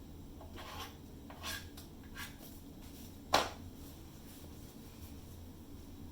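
A few short rubbing or scraping strokes, four in about three and a half seconds, the last one the loudest, over a faint steady low hum.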